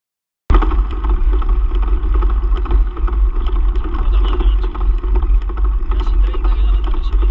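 Wind buffeting and rumble on a handlebar-mounted action camera's microphone as a mountain bike rides along a dirt track, cutting in suddenly about half a second in and staying loud and steady.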